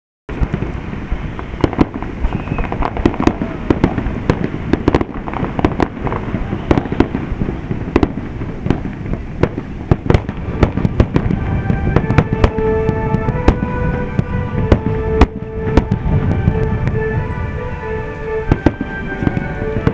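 Aerial fireworks bursting in quick succession, a dense run of overlapping bangs and crackling.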